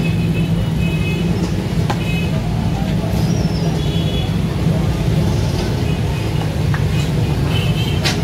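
Steady low engine rumble of street traffic, with a few brief high-pitched tones over it. A sharp slap near the end comes from roti dough being patted flat by hand.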